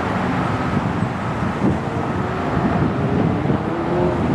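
Boeing 737 airliner's jet engines during the landing rollout: a steady rumble, with an engine whine that rises slightly in pitch and grows louder toward the end as the aircraft comes nearer.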